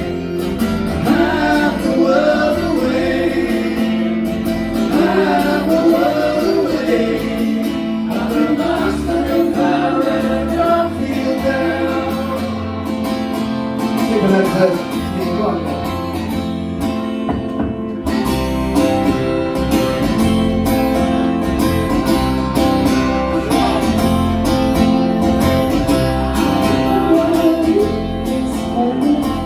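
Live band playing a song: guitar and bass under a singing voice.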